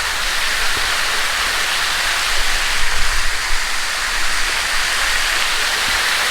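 Waterfall spreading thinly down a broad, plant-covered rock face and pattering into a shallow pool: a steady hiss of falling, splashing water.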